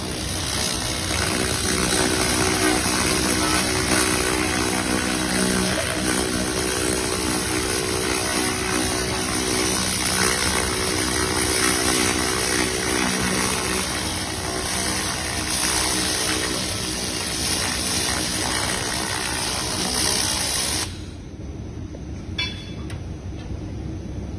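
Pulsed fiber laser cleaner stripping paint from a steel bar: a loud, steady hiss over a low machine hum. The hiss cuts off suddenly about 21 seconds in as the laser stops, leaving the hum and a faint click.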